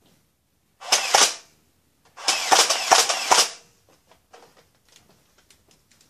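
Nerf foam-dart blaster being fired: a short burst of two sharp cracks about a second in, then a longer run of five or six cracks and air puffs a second later. Faint scattered clicks and rustles follow.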